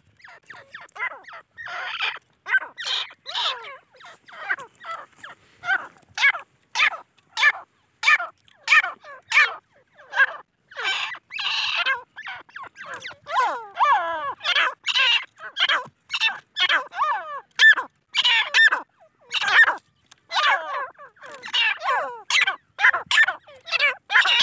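Grey francolin chicks, a Deccani × Iranian cross, chirping continuously. The calls are short and come in a rapid, irregular string of a few a second, and they vary and glide in pitch.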